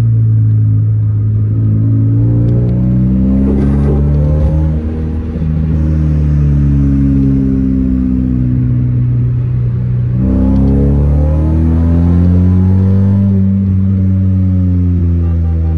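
Car engine pulling under way, its pitch slowly rising and falling with the throttle. About ten seconds in the pitch drops abruptly and then climbs again, as at a gear change.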